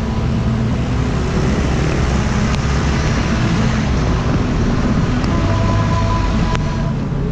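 Busy city road traffic heard from a bicycle: the steady hum of nearby motor vehicle engines over continuous road noise, with a couple of short sharp clicks.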